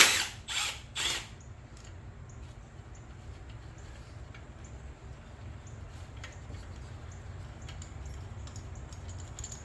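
Three quick, loud noisy bursts about half a second apart, then faint clicks and clinks of hand tools and loose parts being handled over a low steady hum, during disassembly of a generator.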